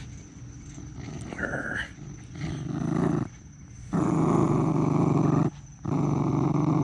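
Jack Russell terrier growling in three long bouts while it tugs on a tennis ball held in a person's hand: a playful tug-of-war growl, not a warning.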